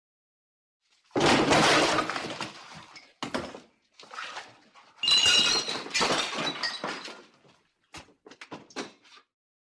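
Sound effect of a body falling onto wood: a heavy crash about a second in, then further crashing and clattering impacts, the biggest around five seconds with a brief ringing, and a few small scattered knocks near the end.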